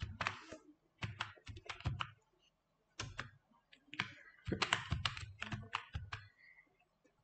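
Typing on a computer keyboard: a run of keystrokes in uneven bursts, stopping near the end.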